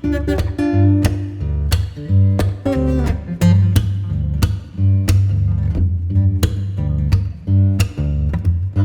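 Background music led by plucked guitar, with a strong bass line and a steady beat.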